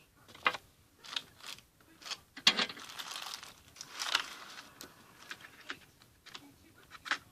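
Irregular clicks and taps of small objects being handled, with a rustling, scraping stretch in the middle; the paint supplies being got out to colour the slime.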